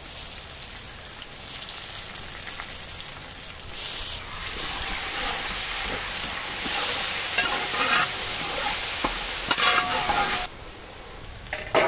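Crushed shallots sizzling as they fry in coconut oil in a wide metal pan. The sizzle steps up a few seconds in and is loudest while the mixture is stirred and scraped across the pan, then drops away suddenly near the end.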